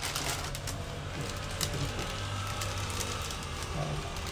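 Clear plastic plant bag crinkling and rustling as it is pulled open and handled: a run of small irregular crackles.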